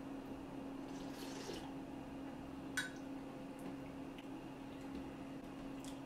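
Quiet slurping of soup from a spoon, with a soft hiss about a second in and one short click a little before the middle, over a steady low room hum.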